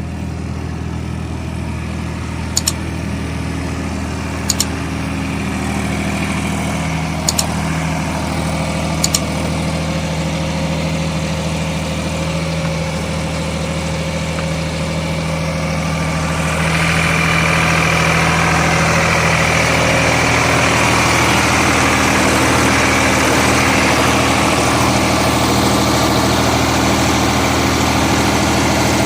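Sonalika 50 hp tractor's diesel engine running steadily, with four short sharp clicks in the first ten seconds. About halfway through it revs up and gets louder, holding the higher speed.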